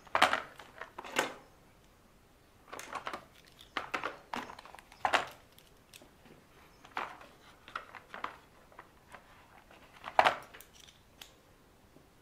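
Small metal bolts and parts being handled: irregular clicks and clinks with light rustling, a few louder knocks spread through, and brief quiet gaps in between.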